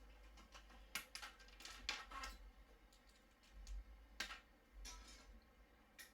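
A few light clicks and taps from handling a smartphone and its USB-C audio adapter, scattered irregularly over a faint low hum.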